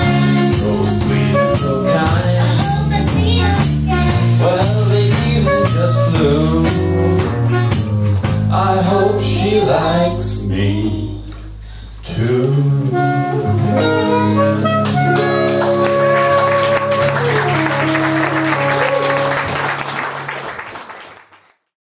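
Live band playing a jazzy song with acoustic guitar, drum kit, saxophone and singing, the drums keeping a steady beat. About halfway it drops briefly, then the band holds a closing chord that rings out and fades away near the end.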